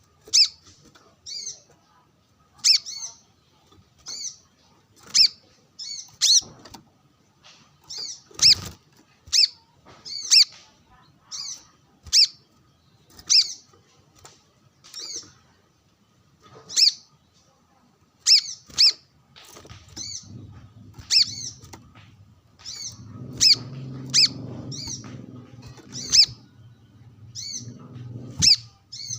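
Brown-throated sunbird calling with short, high chirps repeated roughly once a second. From about twenty seconds in, a low hum runs underneath.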